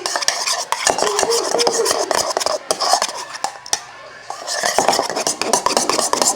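A spoon stirring dish soap and shaving cream in a bowl, with rapid clinks and scrapes against the bowl. The stirring eases briefly about four seconds in, then picks up again.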